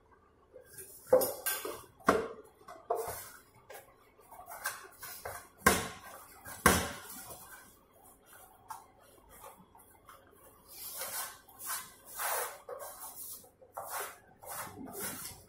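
Gram-flour dough for vanela gathiya being mixed and kneaded by hand in a steel bowl: a few sharp metallic knocks and clinks on the bowl in the first seven seconds, then the rubbing and scraping of hands and dough against the steel.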